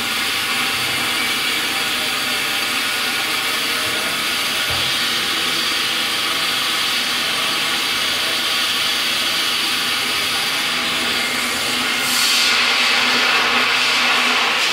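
Compressed air hissing steadily from the dental chair's air line, getting louder near the end.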